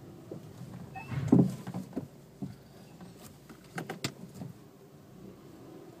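Suzuki Swift 1.2L's brakes giving a brief low groan about a second in as the car creeps forward. The noise comes only when braking slowly with the steering wheel turned, not with the wheels straight. A few sharp clicks follow about four seconds in.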